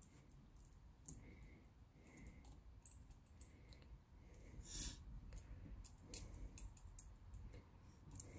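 Faint, scattered clicks and light knocks of a chainsaw's chain and bar being handled during chain reinstallation, with one somewhat louder click about five seconds in.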